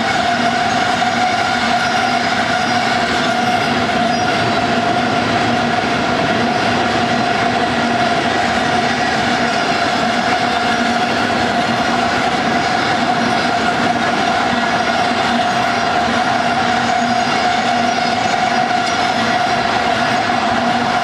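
Railroad tank cars of a freight train rolling past at steady speed: a continuous noise of steel wheels on rail with a steady ringing tone held over it.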